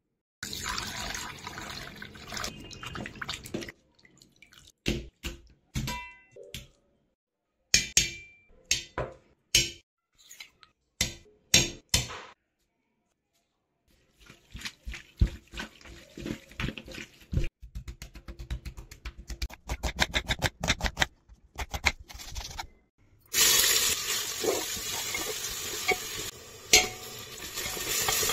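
A run of close-up kitchen sounds: separate knocks and clinks, then wet squelching as raw mutton pieces are mixed by hand with spices and herbs. About five seconds before the end, sliced onions start sizzling steadily in oil in an aluminium pressure cooker, stirred with a wooden spatula.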